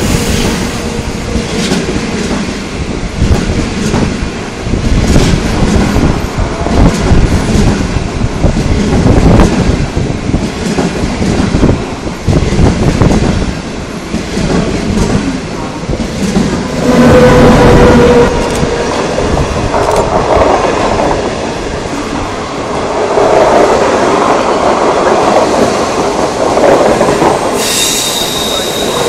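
Passenger coaches of a long 25T train passing close by at speed: a steady rumble with wheels clattering over rail joints, and a brief wheel squeal a little past halfway.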